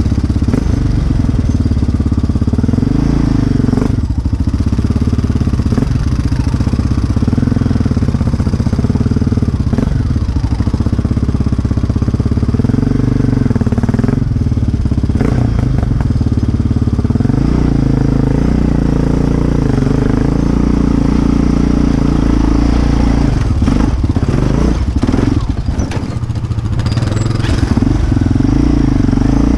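Sport ATV engine running under way, its revs rising and falling with the throttle, with occasional knocks and rattles as it rides over rough ground.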